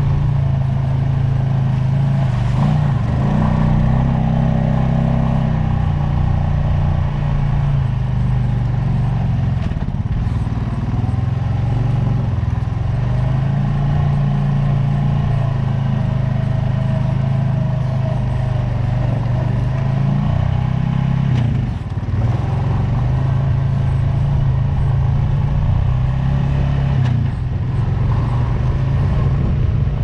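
Honda off-road vehicle's engine running continuously under way on a dirt trail, its pitch shifting up and down with the throttle, with a brief drop in level about 22 seconds in.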